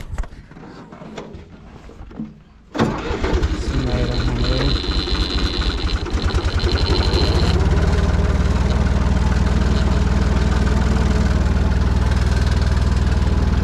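Farm tractor's diesel engine starting about three seconds in, with a brief high whine for a few seconds after it catches, then settling into a steady, louder run from about halfway.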